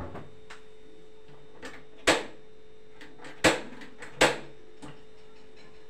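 Three sharp clacks of things being handled at the stove, about two seconds in, at three and a half seconds, and just after four seconds, with a few fainter clicks between, over a steady hum.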